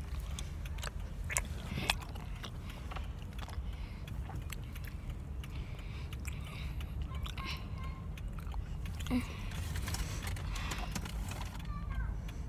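Phone being handled close to its microphone, with scattered clicks, taps and rubbing. Under it runs a steady low rumble inside a stationary car.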